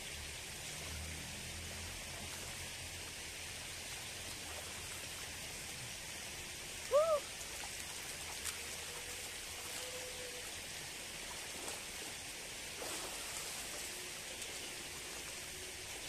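Steady hiss of water flowing in a shallow irrigation channel, with light splashing as a bather scoops and throws water by hand. About seven seconds in, a brief, loud hooting call sounds, rising and falling in pitch.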